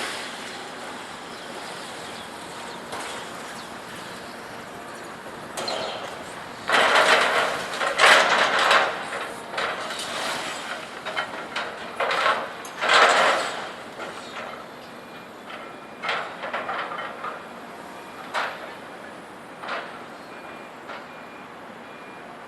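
Scrap metal banging and crashing as a loader handles it, over a steady background of machinery. A burst of loud clattering crashes comes about six to nine seconds in, another about twelve to thirteen seconds in, then a few lighter single bangs.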